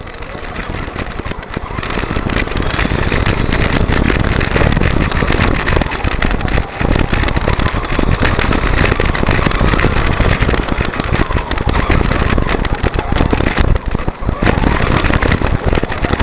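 Traxxas Telluride 4x4 RC truck heard from its own onboard camera while driving over rough ground and gravel: motor and drivetrain running, with tyres crunching and a dense, constant rattle of stones and chassis. The noise builds up over the first two seconds as it gets moving, then holds steady.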